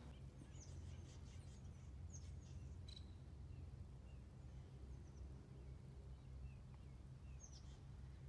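Quiet outdoor ambience: a low steady rumble with faint, scattered bird chirps.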